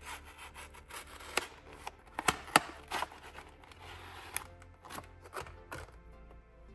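Packaging of replacement iPhone parts being handled and opened during unboxing: rustling with scattered sharp clicks and taps, the loudest about two and a half seconds in. Faint background music runs underneath.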